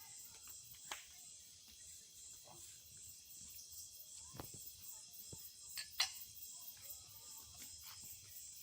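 Faint steady chorus of crickets, with a few sharp clicks scattered through it, the loudest about six seconds in.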